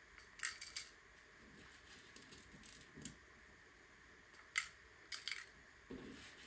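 Plastic LEGO pieces clicking and clattering as they are handled and pressed together: scattered sharp clicks, three in quick succession about half a second in, a louder single click past the middle, and a pair shortly after, with a few duller knocks between.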